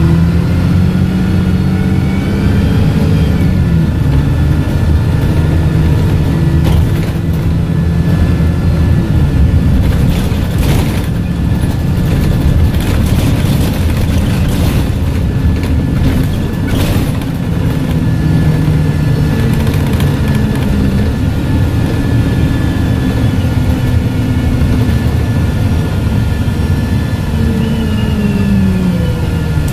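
Dennis Dart SLF bus heard from inside the saloon: its diesel engine and loud Voith automatic gearbox whine. The engine note rises and falls several times as the bus accelerates and slows, and there is a run of knocks and rattles about halfway through.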